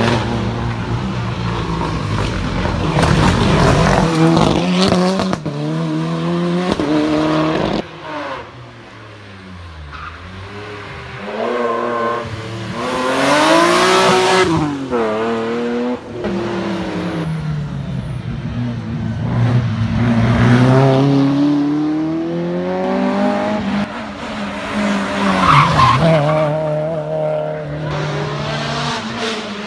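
Rally cars passing one after another through a bend, engines revving hard, their pitch climbing and dropping with each gear change and lift-off. A BMW E30 3 Series rally car makes the loudest close pass about fourteen seconds in, after a brief lull.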